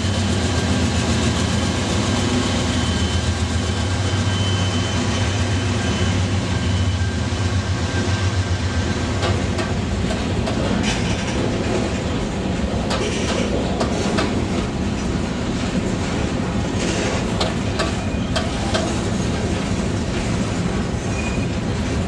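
Freight train passing close by. For about the first eight seconds the low, steady engine sound of the GE Dash 9-44CW diesel locomotives dominates, then fades. After that, covered hopper cars roll past with steady wheel noise and repeated clickety-clack over the rail joints.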